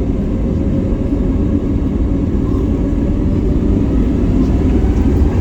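Steady low rumble inside the cabin of an Airbus A321neo, heard from a window seat at the over-wing exit row: the engines running and the airframe rumbling. A few faint steady tones sit above the rumble, which grows slightly louder toward the end.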